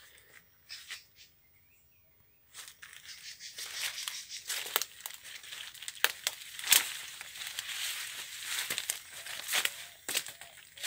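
Leaves and twigs rustling and crackling as someone pushes through dense undergrowth, starting about two and a half seconds in and running on with many sharp snaps.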